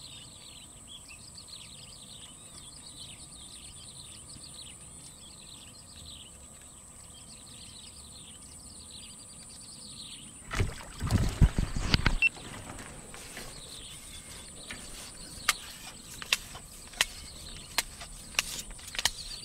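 Small birds chirping in quick repeated falling notes over a steady high whine. About ten seconds in comes a loud rough burst of splashing and line noise lasting under two seconds as a small fish is struck and hauled out of the weed-covered pond, followed by several sharp clicks.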